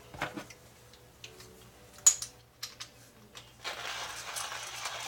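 A few scattered clicks and knocks of hard things being handled, then from about three and a half seconds in the steady crunching of a hand coffee grinder grinding dark-roast coffee beans.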